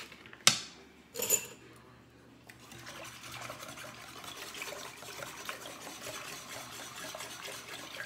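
Two ringing metal clinks of a utensil striking a stainless steel pot, about half a second and just over a second in, the first the loudest; then continuous swishing of liquid with light clicks as chicken broth is stirred in the pot to dissolve gravy mix.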